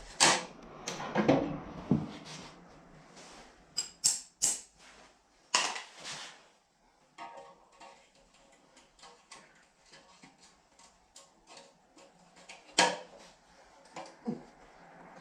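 Metal parts of an old, rusty surgical table clanking and knocking as it is worked apart: several loud separate clanks, with a run of lighter clicks and taps in the middle.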